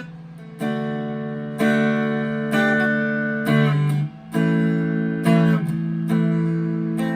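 Clean electric guitar played on the neck P90 pickup of a Chapman ML3 Standard through a Vox AV15 amp with no pedals: chords struck about once a second and left to ring.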